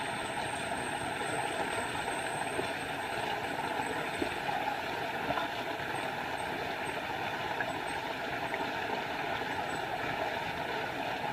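Small forest waterfall splashing steadily, an even rush of falling water, with a few faint high chirps about halfway through.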